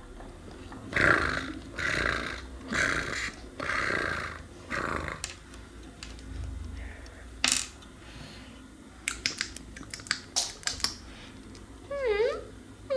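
Five breathy sounds about a second apart, then small plastic toy pieces clicking and tapping on a hard tabletop, with a short wavering high-pitched sound near the end.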